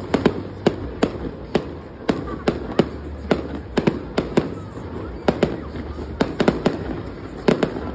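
Fireworks display going off: a rapid, irregular series of sharp bangs and crackles, about four a second.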